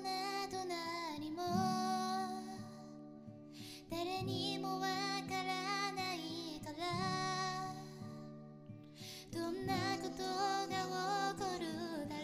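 A woman singing a pop song in phrases over her own strummed acoustic guitar, with two short breaths between phrases.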